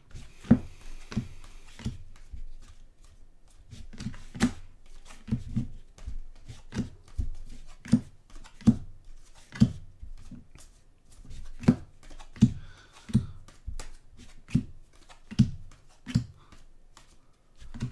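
Stack of trading cards being flipped through one by one, with a light card snap about every two-thirds of a second and a brief pause about two seconds in.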